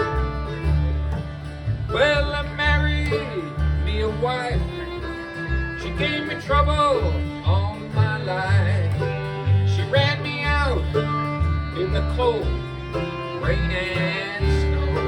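Bluegrass band playing an instrumental break, with banjo and guitar backing, bass notes, and a lead line that slides and bends in pitch, as a fiddle does.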